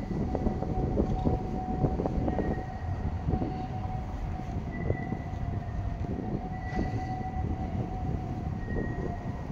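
A tram running close by: a low rumble under a steady whine, with a fainter, higher tone coming and going.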